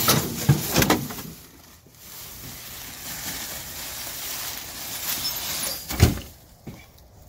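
A cluster of sharp knocks and clatter in the first second, then one heavy thud about six seconds in as an object is thrown down onto the ground.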